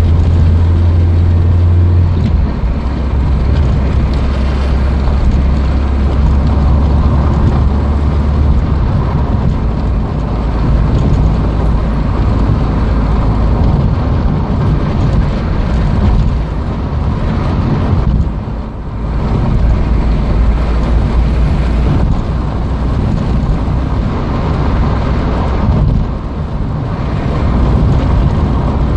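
Peugeot 205 1.6's four-cylinder petrol engine running steadily while the car is driven, with road and tyre noise, heard from inside the cabin. The engine's low note steps down about two seconds in, and the sound briefly drops away twice, a little past halfway and near the end.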